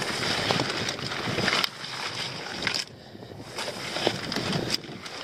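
Rustling and light knocks of a weed-filled lobster pot being handled aboard a small dinghy, over water sloshing against the hull. The rustling dips away briefly about three seconds in.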